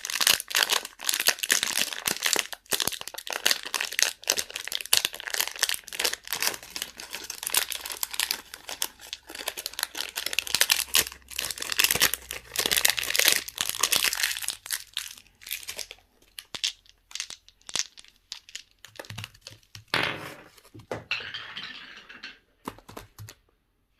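Plastic candy wrappers crinkling and tearing as lollipops and surprise eggs are unwrapped: dense crackling for most of the time, thinning to scattered crinkles and stopping shortly before the end.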